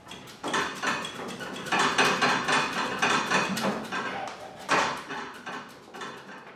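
Rusted exhaust muffler of a Honda CX500 being wiggled and twisted by hand against its mounting bracket: fast, uneven metallic rattling and clanking, loudest about two seconds in and again near five seconds. The muffler is rusted into the exhaust joint and will not come loose.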